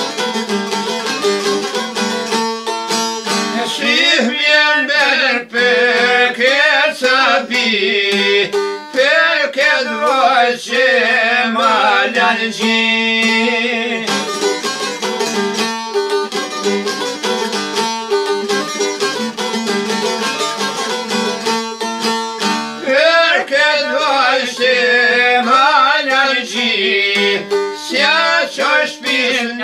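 Two long-necked Albanian lutes of the çifteli type, plucked and strummed together over a steady low drone. Men's voices sing a wavering, ornamented folk melody over them from about four seconds in, drop out, and come back near the end.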